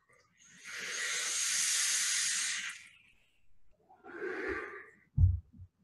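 A long, even hiss of air being drawn through a sub-ohm vape (Drop Dead dripping atomizer with a 0.1 ohm coil at 83 watts), followed a second later by a shorter, softer hiss of the vapour being exhaled. Two short low thumps come near the end.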